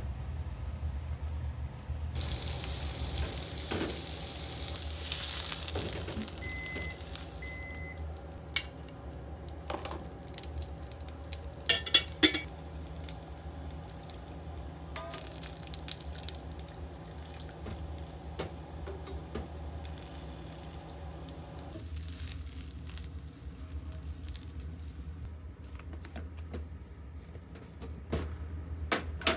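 Eggplant pieces sizzling in hot oil in a frying pan, with two short electronic beeps partway through. Later, utensils and dishes clink and knock in a few sharp clicks, over a steady low hum.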